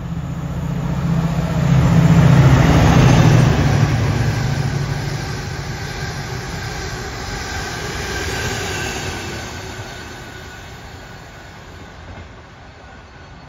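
Class 68 diesel-electric locomotive passing at speed under power, its Caterpillar V16 engine loudest about two to three and a half seconds in. The coaches follow, rolling by on the rails, and the sound fades slowly as the train draws away.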